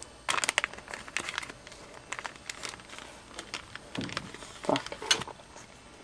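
Clear plastic packet crinkling and rustling in irregular bursts as it is opened by hand and the strip of FBS fingerboard grip tape inside is pulled out.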